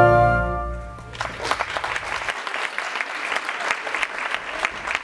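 Ballet music ending on a held chord that dies away within about a second, then an audience applauding steadily.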